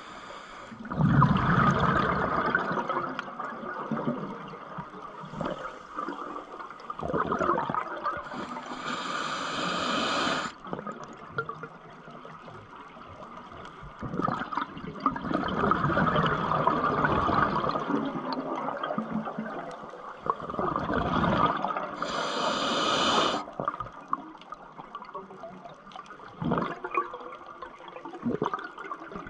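Scuba diver breathing through a regulator underwater: bursts of exhaled bubbles gurgling for a few seconds at a time, roughly every six or seven seconds, with a short high hiss at some of the breaths.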